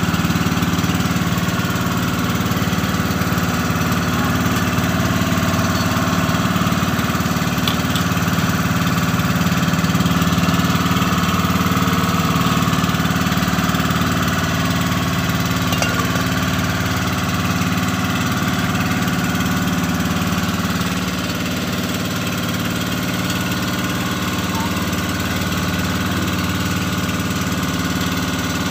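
Motorised outrigger boat's engine running steadily, with an even, unchanging pitch.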